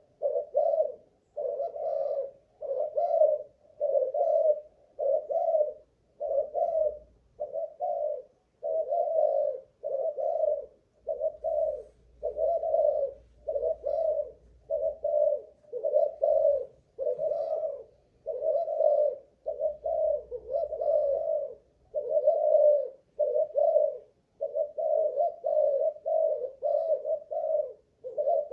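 Spotted dove (Malaysian-strain cu gáy) cooing steadily, one phrase after another at about one a second with only short breaks.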